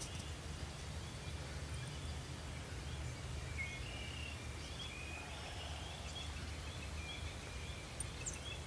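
Faint outdoor ambience of birds chirping: many short, high chirps scattered throughout, over a steady low rumble.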